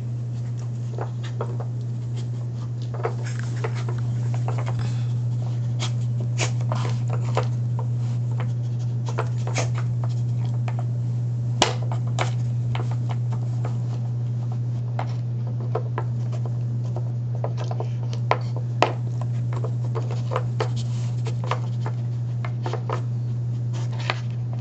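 A dog nudging and pawing the sliding pieces of a puzzle toy: scattered light clicks, knocks and rubs. One knock about halfway through is sharper than the rest. A steady low hum runs underneath.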